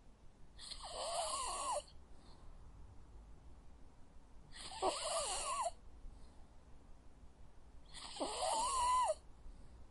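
Sleeping dog snoring, three snores spaced about three and a half seconds apart. Each snore carries a whistling nasal note that rises and falls over a breathy hiss.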